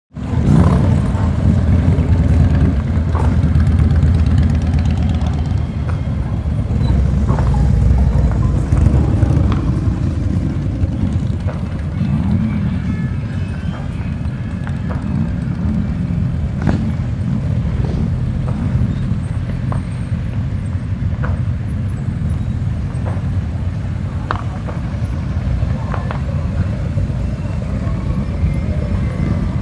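Motor vehicle running: a steady low rumble with a few scattered clicks and knocks.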